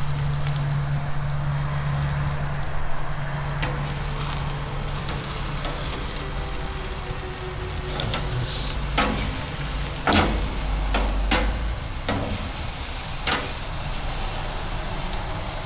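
Ribeye steaks sizzling as they sear on a hot grill, a steady hiss. Several short knocks come in the second half.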